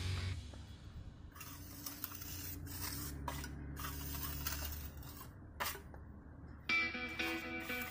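Faint, intermittent scraping with a few light clicks, over a low steady hum. Guitar background music comes back in near the end.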